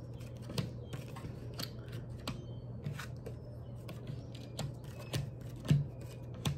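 Tarot cards being shuffled and handled: irregular light snaps and clicks, a sharper snap near the end, over a steady low hum.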